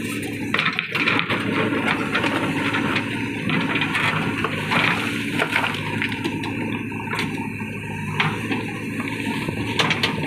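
A JCB 3DX backhoe loader's diesel engine runs steadily under load while the backhoe bucket digs into broken rock and swings it over a truck bed, with stones knocking and clattering against each other and the steel bucket.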